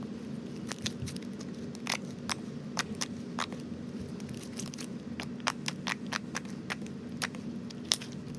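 Freshly activated PVA-glue slime being kneaded by hand, giving off irregular sticky clicks and pops, several a second, over a steady low hum.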